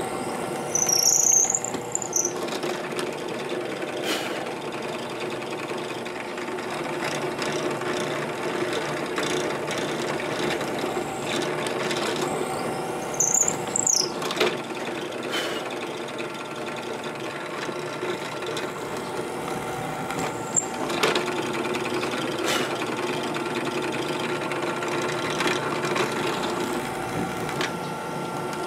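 Electric drill running steadily as it bores holes through a wooden Telecaster-style guitar body, with two brief high-pitched squeals, one about a second in and one about 13 seconds in.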